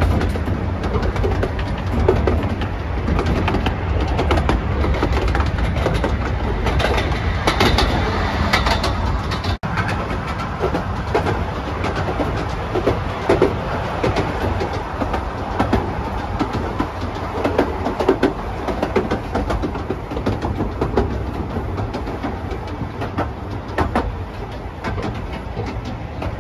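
Carriages of a 15-inch gauge miniature railway train running along the track, heard from an open carriage: a steady rumble of wheels on rail with frequent clicks and rattles. There is a momentary drop-out about ten seconds in, and the running grows a little quieter near the end as the train comes into the station.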